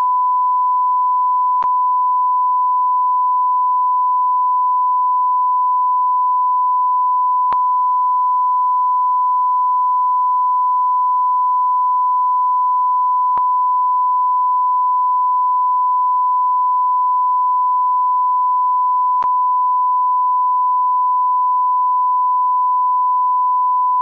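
Electronic test tone: one steady, unbroken high beep at a single pitch, with a faint click about every six seconds.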